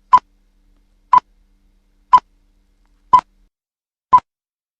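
Countdown timer sound effect: five short electronic pips centred on one pitch, evenly spaced one a second, marking the time given to answer the question.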